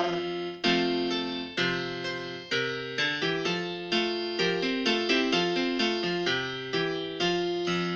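Piano-sounding keyboard playing a tune in struck notes and chords, each fading after it is struck, about two or three a second: an instrumental passage between the sung lines of a children's song.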